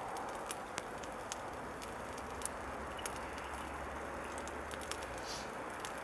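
Small wood fire in a camp stove crackling faintly: a steady hiss with scattered soft pops.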